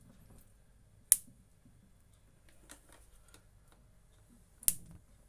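Two sharp clicks about three and a half seconds apart, with a few faint ticks between them.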